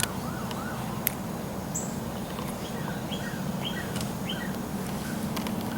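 Wild birds calling: short rising chirps repeated about every half second over a steady low hum of background noise, with two sharp clicks near the start and about a second in.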